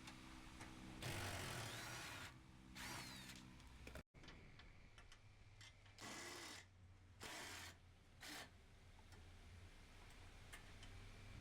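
A handheld power tool run in several short bursts of a second or less, as if driving out or running down bolts.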